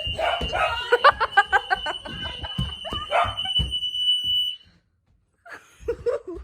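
Fire alarm sounding one steady, high-pitched tone during an alarm test, cutting off suddenly about four and a half seconds in. People are laughing over it.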